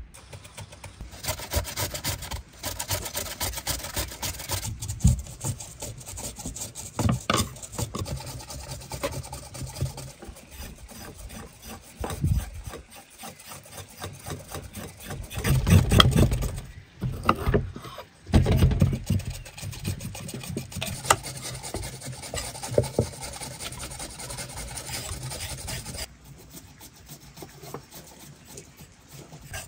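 Beetroot being grated on a metal box grater, a steady run of fast rasping strokes, mixed with a knife scraping the skin off carrots on a wooden board. A few louder bumps come about halfway through.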